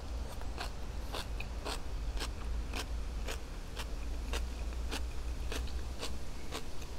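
Close-up chewing of food eaten straight from a jar, with a sharp wet click of the mouth or teeth about twice a second, over a steady low rumble.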